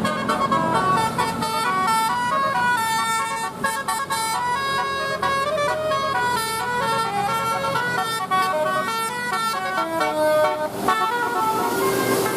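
Bus's Basuri telolet musical air horn playing a rapid tune of short stepped notes, which stops about a second before the end.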